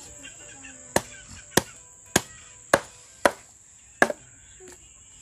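A heavy cleaver chopping through a reticulated python's body onto a wooden plank: six sharp chops about half a second apart, the last one landing as a quick double hit.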